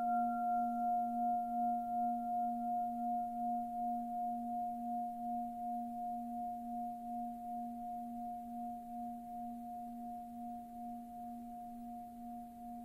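A singing bowl rings on after a single strike, with a low tone and a higher tone held together. It wobbles in volume about twice a second and fades slowly, while a fainter top tone dies away about five seconds in.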